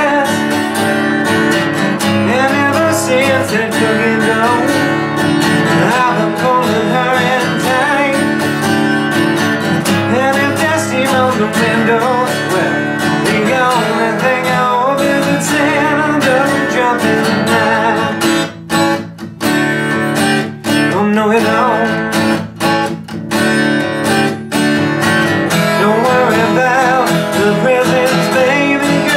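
Cutaway acoustic guitar strummed and picked through an instrumental break in a country song, with a few short stops about two-thirds of the way through.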